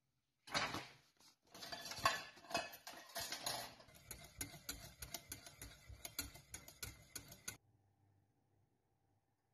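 Wire balloon whisk beating a thin béchamel sauce in a stainless steel saucepan: rapid, rhythmic scraping and clicking of the wires against the metal pan, stopping suddenly near the end.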